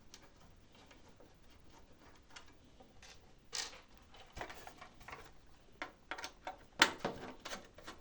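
Screwdriver working a cover screw out of a DVR's metal case: scattered small clicks and taps of metal on metal, picking up from about halfway through, with one sharper tap near the end.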